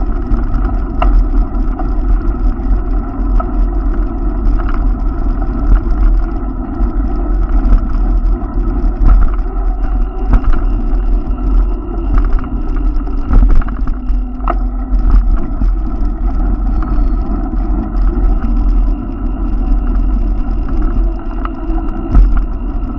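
Steady rumble of wind and road vibration on a moving camera riding along a city bike lane, with passing traffic behind it. Short knocks come now and then, at about 1, 5, 10, 14 and 22 seconds, as the ride goes over bumps.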